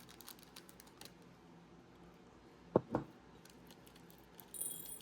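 Faint handling of a small packet of Czech pressed-glass flower beads: light clicks and rustles, two soft knocks close together about three seconds in, then glass beads clinking together near the end.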